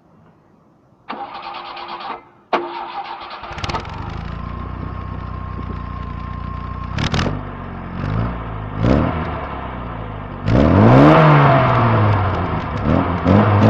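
SEAT 124's engine being started: the starter cranks it briefly twice, and it catches on the second try and settles into a steady idle. It then takes a few short throttle blips, with a bigger rev near the end.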